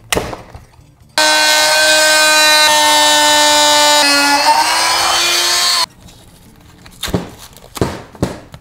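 Corded Bauer oscillating multi-tool cutting through the plastic case of a lithium iron phosphate battery. It gives a loud, steady buzzing whine for about four and a half seconds, its pitch dipping briefly and recovering, then stops abruptly. A few light knocks follow.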